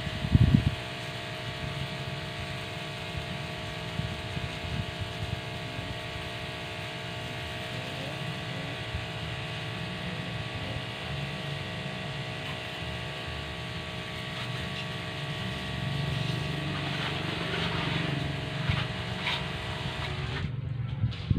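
A motor running at a steady pitch, a hum of several held tones over a low rumble, with a couple of knocks right at the start.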